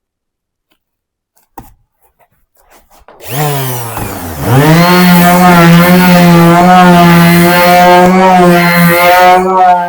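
Electric sanding tool starting up on the log wall: after a click and a few seconds of near silence its motor starts about three seconds in, dips in pitch, then runs up to a loud, steady note that wavers slightly as the abrasive works the wood.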